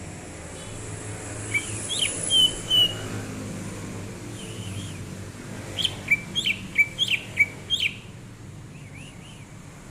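Cucak ijo (green leafbird) singing: two bursts of short whistled notes mixed with sharp upswept chirps, a few notes about a second and a half in, then a quicker run of about six notes from around six to eight seconds in. A steady low background noise runs underneath.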